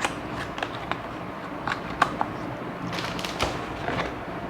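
Unboxing packaging being handled: a low rustle with several short, sharp clicks and taps, the sharpest about two seconds in and a cluster around three seconds.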